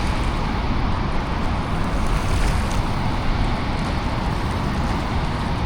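Steady rushing noise of water pouring over a river spillway dam, with wind buffeting the microphone.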